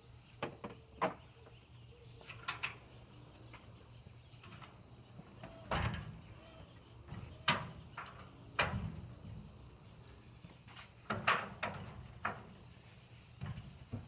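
Irregular metallic clicks and clanks of Cargo Buckle ratcheting tie-downs being hooked and ratcheted on a utility trailer. Some come in quick runs of clicks, and there are a few louder knocks about six, seven and a half, eight and a half and eleven seconds in, over a low steady hum.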